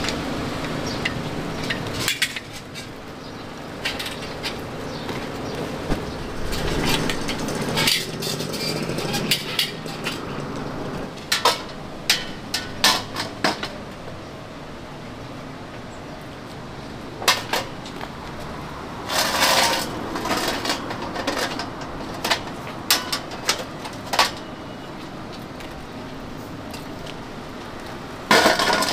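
Irregular clinks, knocks and clatter of metal kitchen utensils and equipment at a street-food stall, sometimes in quick runs, with a longer rattling spell about two-thirds of the way through, over a steady background din.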